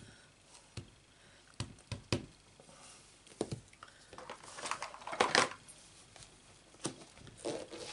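Scattered sharp clicks and taps of a clear acrylic stamp block and rubber stamp being picked up and handled on a craft mat, with a louder rustling scrape about five seconds in.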